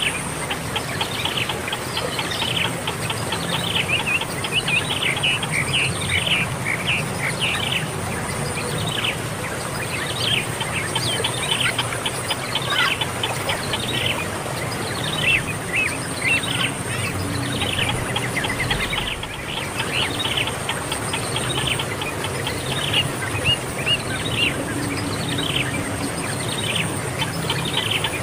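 Birds chirping continually in short, quick notes that drop in pitch, with a steady high-pitched insect buzz behind them.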